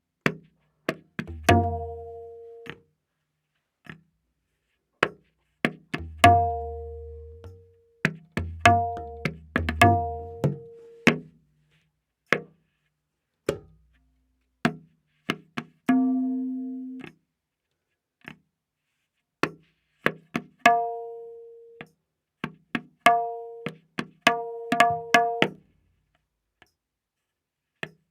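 Tabla playing a slow vilambit ektaal theka, with sparse, separate strokes. The dayan is tuned to A# and its open strokes ring clearly. Deep bass strokes on the bayan fall with several of them.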